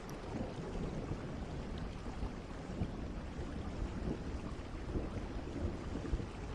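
Thunderstorm soundscape: steady rain with a continuous low rumble of thunder.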